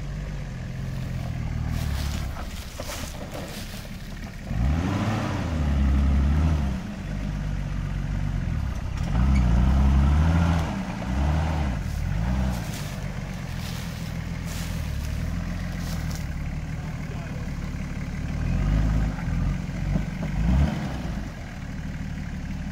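Off-road 4x4 engine running at low speed, revving up and easing off several times as the vehicle works through rough terrain.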